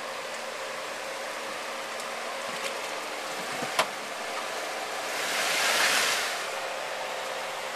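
Jeep Wrangler off-roader crawling slowly through a deep rut, its engine running low and steady. A sharp knock comes about four seconds in, and a swell of hiss rises and fades a second or two later.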